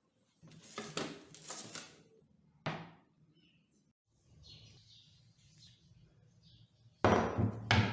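Handling noise: rustling scrapes and a sharp knock in the first three seconds, then a louder rustle near the end as the axe is set down on sheets of paper.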